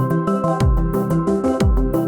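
Electronic music playing back from a Logic Pro session: a deep beat about once a second, each hit falling in pitch, with sharp ticking hits between and held synth notes that step from one pitch to another.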